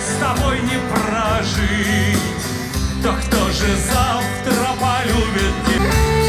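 Upbeat background music with a steady beat and a singing voice.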